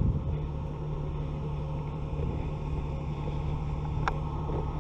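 Steady low rumble on a body-worn camera's microphone, with one sharp click about four seconds in.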